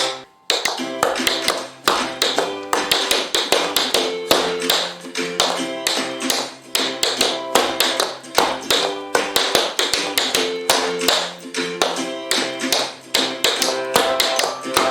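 Tap shoes' metal taps striking the floor in quick rhythmic runs of taps, stomps and scuffs, over background music with plucked guitar.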